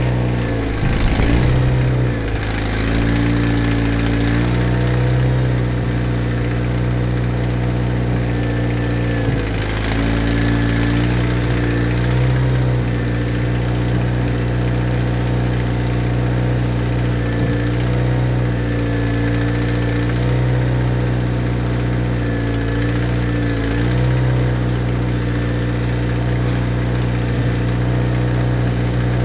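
Bobcat 642 skid-steer loader engine running steadily, with brief dips in engine speed every few seconds as load comes on.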